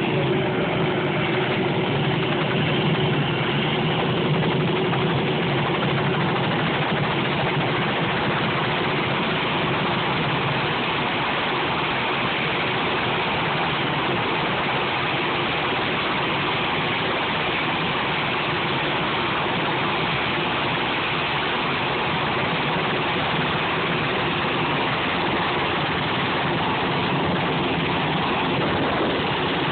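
Helicopter running for takeoff: a loud, steady engine-and-rotor noise. A low hum within it fades out about ten seconds in.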